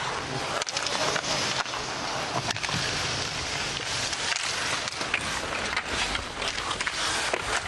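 Ice hockey play: skate blades scraping and carving the ice, with many sharp clicks of sticks and puck, over a steady rush of crowd noise.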